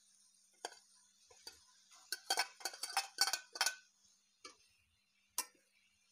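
Steel spoon clinking and scraping against a steel bowl and pan as boiled rice is scooped into the vegetables. There is a quick run of clinks about two seconds in, and single taps before and after it.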